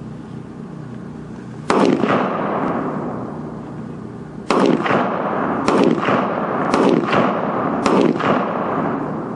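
Five gunshots on an outdoor firing range, each trailing off in a long rolling echo. The first comes about two seconds in, then four more follow about a second apart.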